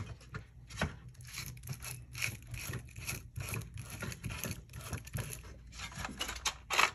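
Hard plastic parts of a fish-finder head unit and its mount being handled and worked loose. Rubbing and light clicks, with a sharper click just under a second in and a louder one near the end.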